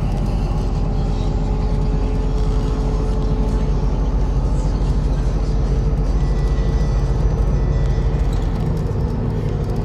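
MAZ-103 city bus under way, heard from inside the cabin: a steady engine and road rumble, with the engine note changing near the end.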